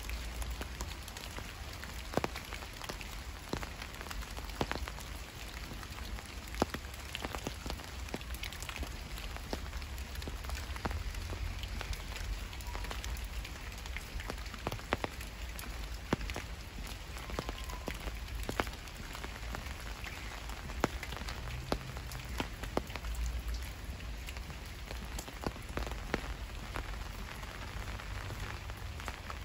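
Steady rain falling, with many irregular sharp drop impacts ticking through it over a low rumble.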